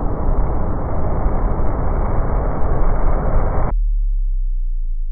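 A loud, dense, low rumble from the film's sound design cuts off abruptly a little over three and a half seconds in, leaving only a deep, steady low hum that slowly fades.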